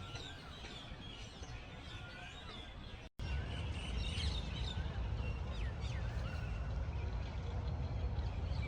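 Several small birds chirping and singing over a steady low rumble. About three seconds in the sound cuts out for an instant, and the rumble comes back louder.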